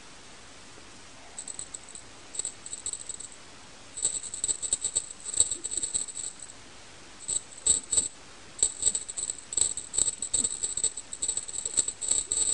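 A small rattle jingling in irregular bursts, with short pauses between them and the shaking busiest in the second half.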